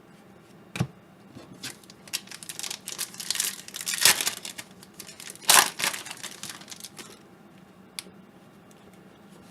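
Foil wrapper of a trading-card pack being torn open and crinkled by hand, with sharp rustling peaks. Single clicks come about a second in and near the end.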